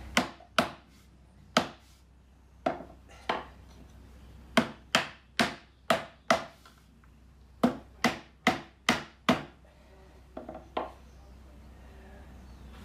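Mallet knocking maple parts of a Windsor rocker into their sockets during a dry assembly: about fifteen sharp wooden knocks in uneven groups, then two lighter taps near the end.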